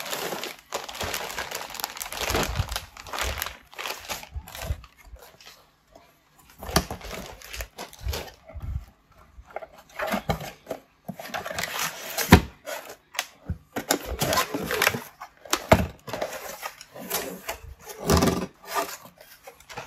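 Plastic wrap crinkling and corrugated cardboard packaging being handled as a wrapped laptop is lifted out of its box, with irregular rustling and scattered knocks and scrapes of cardboard.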